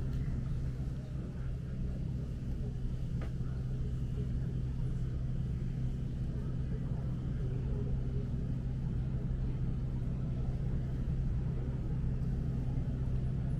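A steady low mechanical hum with a rumble beneath it, and one faint click about three seconds in.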